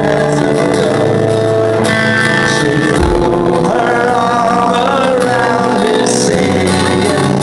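Celtic punk band playing live, a man singing over loud guitars in a muddy, poor-quality recording made from the crowd.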